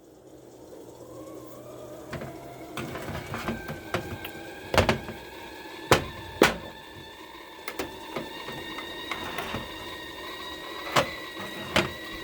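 A machine whine that rises in pitch over the first two or three seconds and then holds steady, with sharp clicks and knocks scattered through it, several of them loud.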